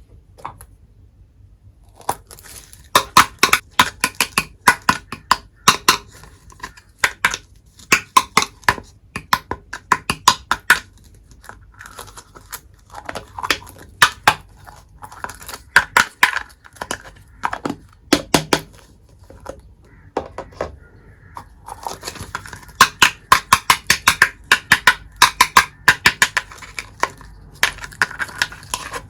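Toy kitchen set pieces and their packaging being handled during unboxing: rapid crinkling and sharp little clicks coming in quick clusters, starting about two seconds in.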